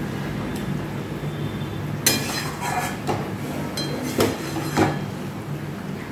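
Flat steel spatula knocking and scraping against an aluminium kadai, with a handful of sharp clinks from about two seconds in, as softened fish heads are broken up in a simmering curry. A steady low hum runs underneath.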